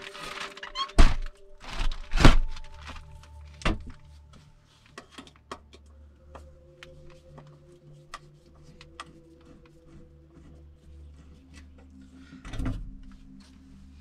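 Wooden knocks and thuds as a window frame and its camouflage curtain are pulled down and dismantled: three heavy knocks in the first four seconds, then lighter taps and clicks, and a short rustle near the end.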